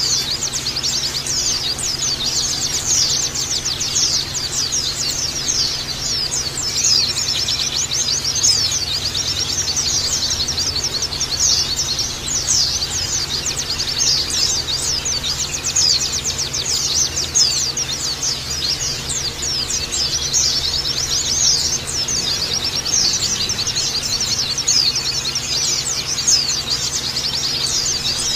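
A group of white-eyes (pleci) twittering together in a dense, unbroken chorus of rapid high chirps. A faint steady hum runs underneath.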